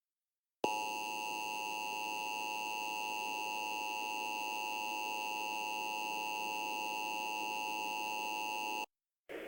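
Emergency Alert System attention tone: a steady electronic alert tone that starts abruptly under a second in, holds unchanged for about eight seconds and cuts off sharply, the signal that an emergency alert message follows.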